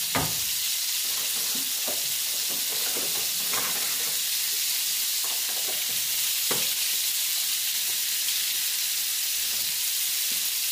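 Meatballs sizzling in hot oil in a frying pan, a steady hiss, with a few light knocks, the first right at the start and others about three and a half and six and a half seconds in.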